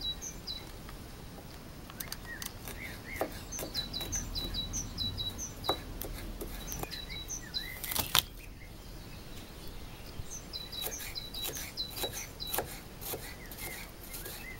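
Knife chopping garlic cloves on a wooden board: scattered sharp taps of the blade, the loudest about eight seconds in. Small birds chirp in quick repeated phrases throughout.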